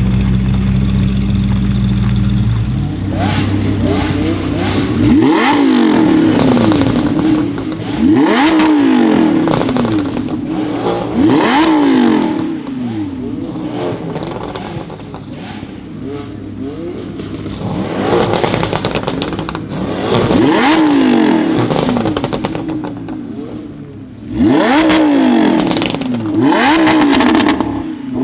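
Mercedes-AMG GT R twin-turbo V8 through an aftermarket Fi valved exhaust, idling for a few seconds, then revved again and again. Each rev rises sharply in pitch and drops back, with crackles in between.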